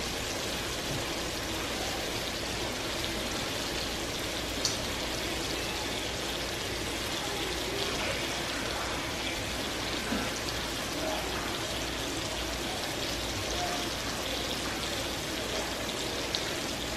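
Pot of water at a rolling boil on the stovetop giving a steady watery hiss, with a few light clinks of a spoon against a metal pot as sauce is stirred.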